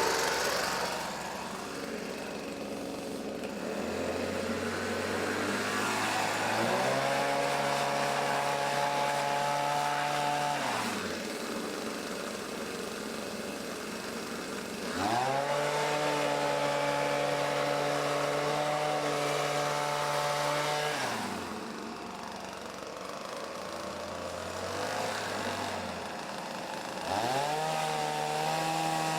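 Hitachi RB24EAP two-stroke gas leaf blower blowing dust out of a vacuum cleaner filter. It is throttled up from idle three times and held at full speed for several seconds each time, dropping back to idle in between.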